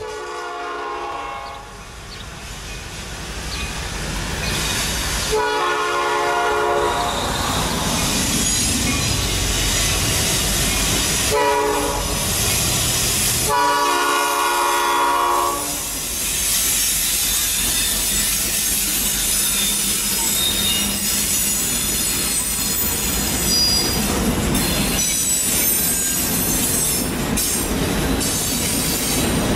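Sound effect of a diesel freight train: a locomotive air horn blows the grade-crossing pattern of long, long, short, long, then the train rumbles past with wheels squealing and clattering over rail joints.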